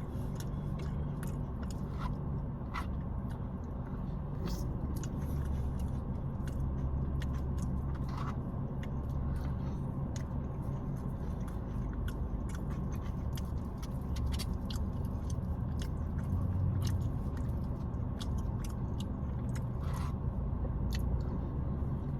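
Close-up chewing and biting of soft food, KFC Famous Bowl chicken, mashed potatoes and gravy, with many small wet mouth clicks throughout. A steady low hum runs underneath.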